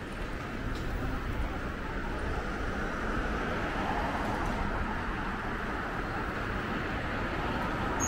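Street traffic noise, with a car passing close by and its tyre and engine noise swelling in the middle.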